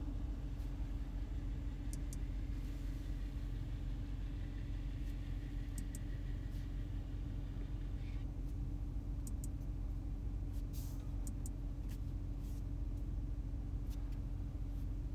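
3.0-litre turbocharged V6 of an Audi A8 L idling steadily, with a few faint high clicks.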